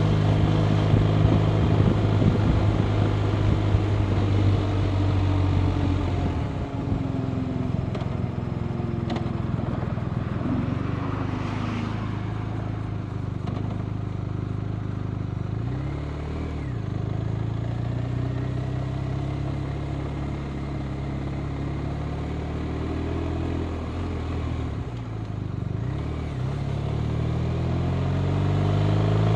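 BMW R 1250 RT's boxer-twin engine running on the road with wind noise. The engine is louder for the first six seconds, then eases off. The revs bend at two points, and the engine pitch climbs steadily near the end as the bike accelerates.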